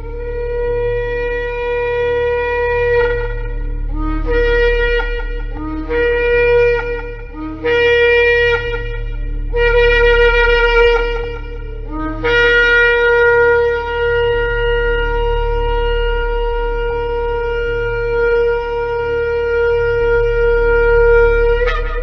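Shofar blowing: a long blast, then four shorter blasts that each start low and step up in pitch, then a long held blast of about ten seconds that ends with an upward flick. A steady low hum runs underneath.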